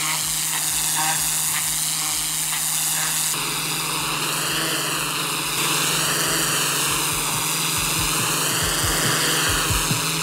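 Pressure-washer lance blasting a hot-water jet onto stone paving slabs: a steady, loud hiss over a low, even hum, its tone wavering slowly up and down from a few seconds in.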